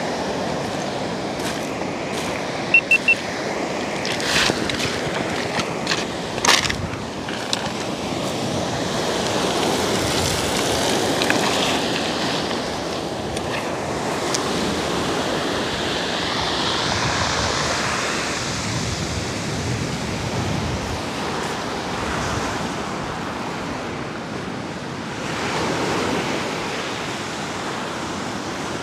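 Surf breaking and washing up a pebble beach: a steady rush that swells and eases slowly. A few sharp knocks stand out in the first several seconds.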